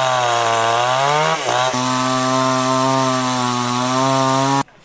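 Chainsaw running at high speed; its pitch dips and recovers about a second and a half in, then holds steady until it cuts off suddenly near the end.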